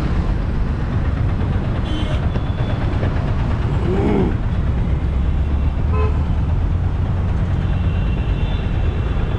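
Auto-rickshaw ride through traffic: a steady engine and road rumble, with vehicle horns honking briefly about two seconds in, once more around the middle, and for longer near the end.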